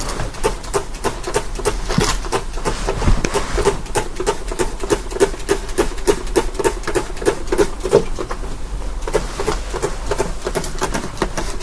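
A rapid, steady series of light taps or knocks, several a second.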